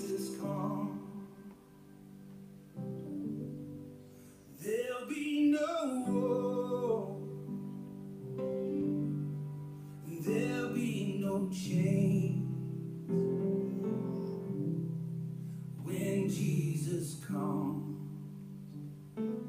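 A worship song: a voice singing over sustained instrumental chords.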